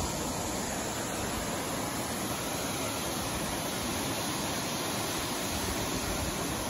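Aguasabon Falls, a tall waterfall dropping into a rock gorge, rushing with a steady, unbroken noise.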